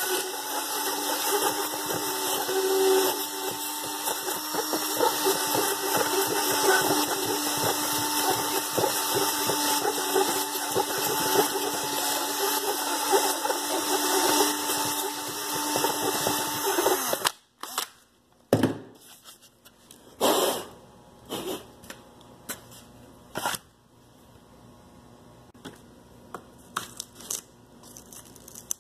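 A hand-held drill runs steadily with a Dremel cutter bit inside a drilled hole in a honeycomb sandwich panel, routing the honeycomb core away sideways around the hole to make room for insert epoxy. The drill stops suddenly about 17 seconds in. A few sharp clicks and light scraping follow.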